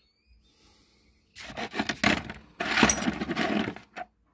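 Brass pipe fittings clinking and rattling against each other as they are handled, in two bursts about a second long each, then a single click near the end.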